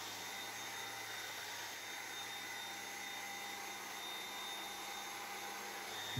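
Dyson cordless stick vacuum running steadily with its small furniture attachment passed over fabric sofa upholstery: an even rushing hiss with a steady hum and a high whine.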